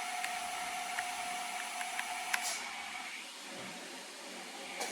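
Fadal 3016L CNC machining centre's spindle running with a steady whine that cuts off about halfway, with a click, as the machine makes a spindle gear change. A quieter steady hum and hiss of shop machinery follows, with another click near the end.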